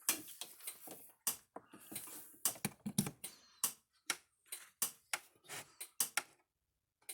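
An irregular run of sharp clicks and light taps, two or three a second, that stops about six seconds in.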